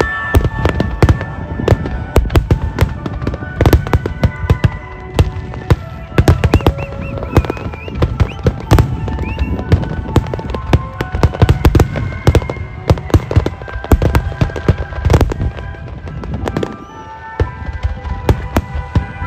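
A dense barrage of aerial firework shells exploding, sharp bangs coming several times a second, with music playing underneath. The bangs ease off briefly near the end.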